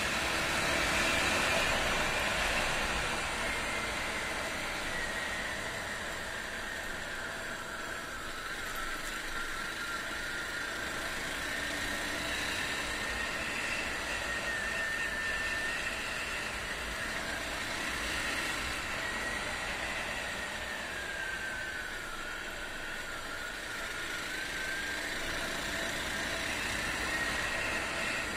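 Honda XR250's single-cylinder four-stroke engine running steadily under way, its note slowly falling and rising with road speed, over steady wind and road noise.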